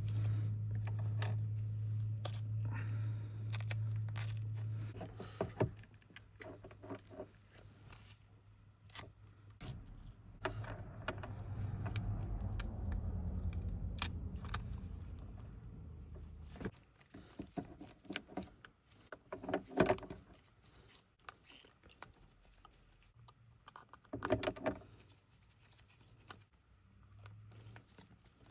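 Small clicks, taps and scrapes of hand tools and parts being handled during an iPhone screen replacement. A steady low hum runs under them for the first five seconds and again from about ten to sixteen seconds in.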